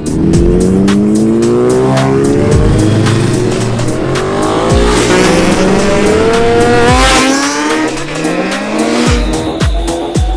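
Sport-bike engines revving hard and accelerating through the gears, the engine pitch climbing, dropping at each upshift and climbing again, loudest about two-thirds of the way in. Electronic music with a kick-drum beat runs underneath.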